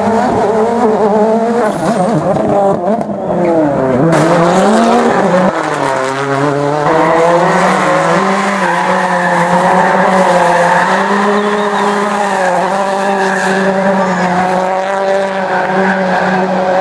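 Ford Fiesta RS WRC rally car's 1.6-litre turbocharged EcoBoost engine at high revs on a tarmac stage. The engine note rises and falls with two sharp drops in the first half, as on lifting and braking, then holds nearly steady. Tyres squeal over the engine.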